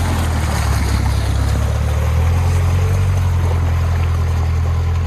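Off-road 4x4 engine running with a steady low drone that shifts slightly about two seconds in, with water rushing.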